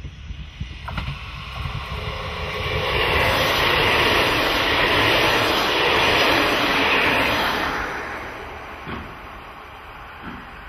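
JR KiHa 40-series diesel railcars passing close by: the engine and wheel-on-rail noise build up, are loudest about three to seven seconds in, then fade as the train moves away. A couple of short clicks sound near the start and near the end.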